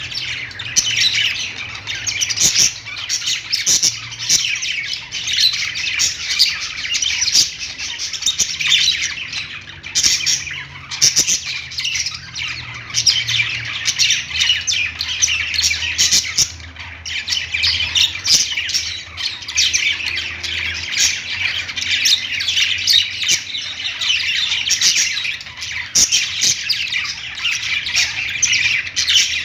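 A group of budgerigars chattering and warbling together, a dense, continuous mix of overlapping chirps and calls with a few brief lulls.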